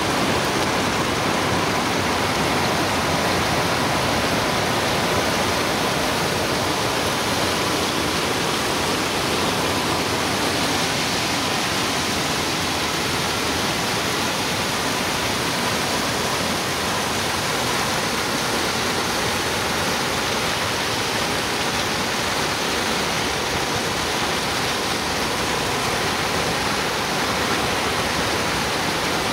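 Muddy floodwater of a creek swollen by heavy rain rushing and spilling over its bank, a steady churning rush of water.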